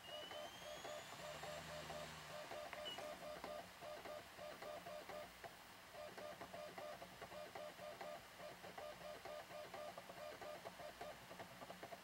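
A MacBook Pro's slot-loading optical drive reading an install DVD during boot: a faint rising whine as the disc spins up near the start, then a fast, regular mechanical chatter of the drive seeking.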